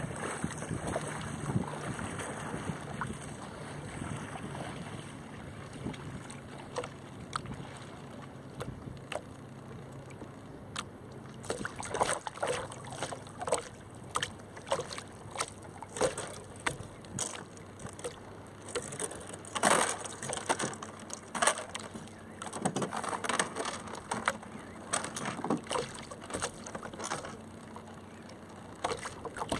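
Shallow water lapping and splashing right at a camera sitting at the surface, with irregular splashes that grow more frequent about a third of the way in.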